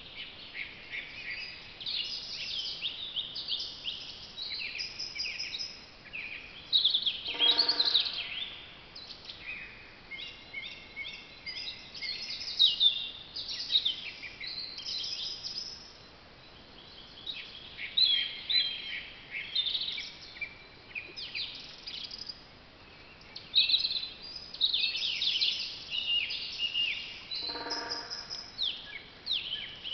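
Several woodland songbirds singing together in a continuous, overlapping chorus of high chirps and trills. Twice, about twenty seconds apart, a brief lower call cuts through.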